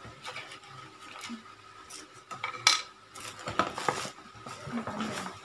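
Small hard objects being handled, clinking and knocking: scattered clicks, the loudest about two and a half seconds in, then a quick cluster of knocks a second later.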